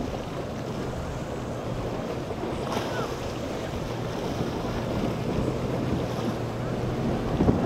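Choppy inlet water sloshing and wind buffeting the microphone, under the low, steady hum of an outboard motor idling, with a brief thump near the end.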